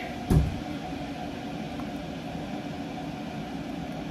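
Steady hum of a running kitchen appliance, with one low thump about a third of a second in.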